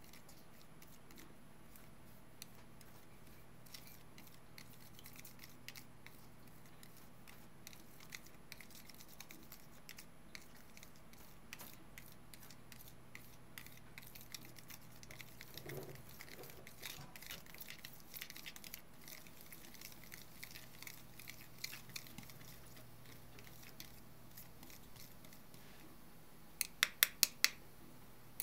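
Stick stirring sand in a bowl of water: faint, scattered ticks and scrapes of the stick and grains against the bowl. Near the end, a quick run of about five sharp clicks stands out as the loudest sound.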